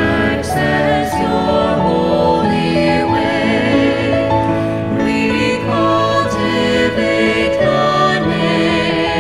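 A hymn sung to musical accompaniment, the voices holding long notes.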